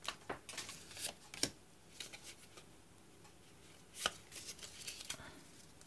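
Pokémon trading cards being handled: a scatter of light taps and flicks as cards are set down on a playmat and slid through by hand, loudest about four seconds in.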